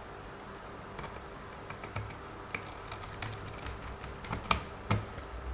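Light clicks and taps of small plastic and metal parts being handled while reassembling a WLToys 144001 RC car's suspension, scattered irregularly, with two sharper knocks near the end.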